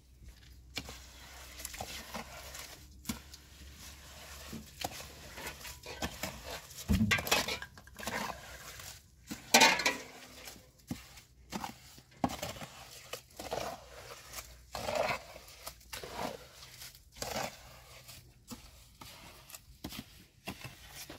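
Irregular knocks, clinks and rustles of things being handled and set down, with louder knocks about seven and nine and a half seconds in.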